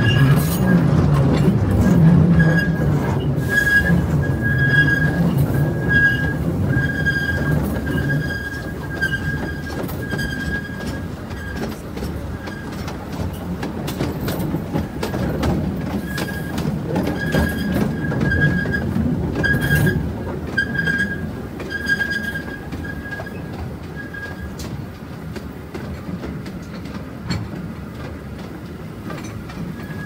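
Taipingshan forest railway's small 'bong-bong' train running, with a low rumble and clicking from the wheels on the rails. A thin high squeal from the wheels comes and goes over and over, dying away in the last few seconds, while the running grows somewhat quieter.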